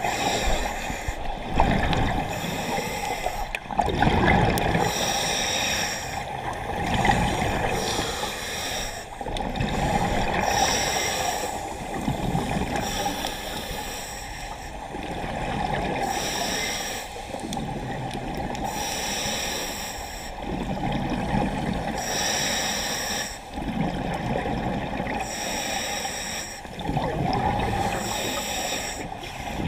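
Scuba diver breathing through a regulator underwater, a breath every three seconds or so. Each inhale is a hiss and each exhale a rumbling burst of bubbles.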